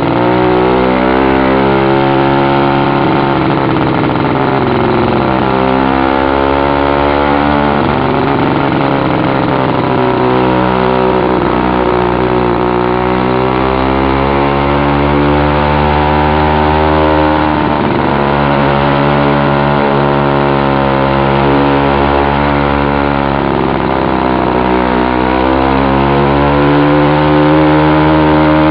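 Two-stroke "China Girl" bicycle kit engine running with its muffler cap removed, very loud, as it pulls a motorized bicycle up a steep climb. Its pitch sags and recovers several times as the load and throttle change.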